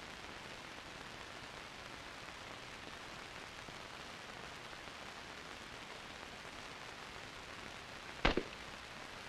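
A single M14 rifle shot about eight seconds in, sharp and brief, over a steady background hiss.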